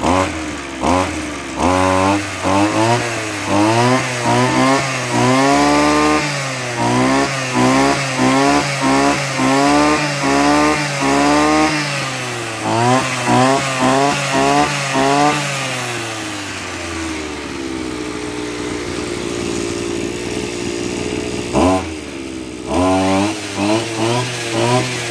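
Maruyama AD26 brush cutter's 26cc two-stroke engine being revved in quick throttle blips, about two a second, the pitch rising and falling with each; about two-thirds of the way through it drops back to a steady idle for several seconds, then is blipped again near the end. It picks up speed sharply, very punchy.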